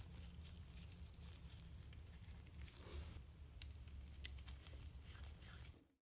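Faint handling noise of nitrile-gloved fingers fitting a rubber washer onto the end of a shower valve stem: small rustles and clicks over a low hum, with one sharper click about four seconds in. The sound cuts off abruptly near the end.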